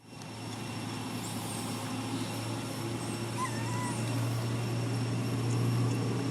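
A steady low hum, with a few short wavering animal squeaks about three and a half seconds in.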